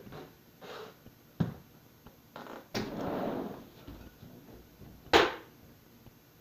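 Footsteps and a sliding glass door being rolled open, with a sharp click before it and one loud, sharp knock a little after five seconds in.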